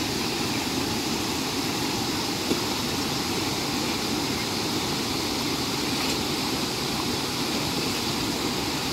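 Shallow river water rushing fast over a concrete weir and around rocks, a steady, even rush.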